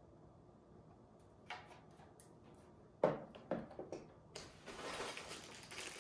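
A few light clicks, then two knocks about half a second apart as a Ridgid 18V battery charger is set down on a wooden table, followed from about four seconds in by continuous rustling of packaging in a tool bag.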